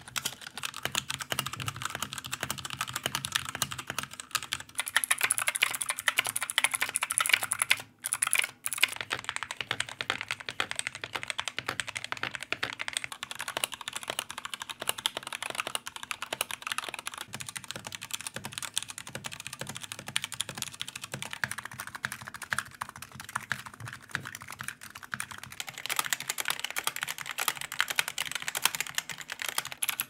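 Fast typing on a succession of different keyboards, the clatter changing character every few seconds, with a short break about eight seconds in. It begins on a cheap kids' keyboard, has an Anne Pro 2 mechanical keyboard with red linear switches around the middle, and ends on a retro typewriter-style mechanical keyboard with round keycaps.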